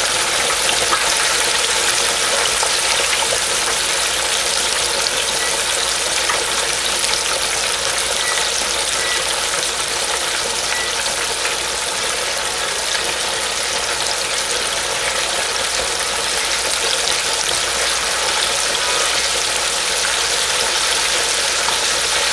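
Flour-coated chicken thighs frying in hot canola oil in a DeLonghi D24527DZ electric deep fryer: a steady crackling sizzle of oil bubbling around freshly added food.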